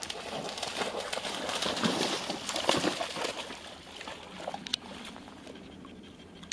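A Golden Retriever bounding through shallow pond water, splashing loudly for about the first three seconds, then wading slowly with quieter sloshing.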